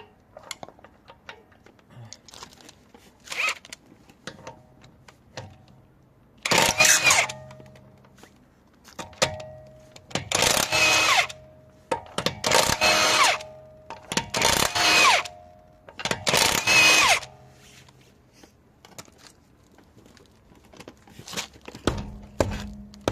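Power tool, likely an impact wrench or drill, run in five bursts of about a second each, with smaller clicks and knocks before and between them. This is typical of loosening a car's five wheel bolts to take the front wheel off.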